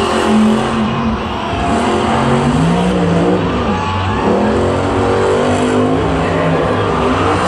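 Max-D monster truck's supercharged V8 revving hard again and again, its pitch swinging up and down as the throttle is worked to rock the truck off its side and back onto its wheels.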